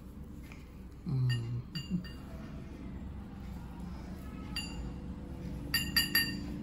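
Light clinks of a metal bracelet, each with a brief bright ring: two about a second in, one more later, and a quick run of three near the end. A short low hum sounds about a second in.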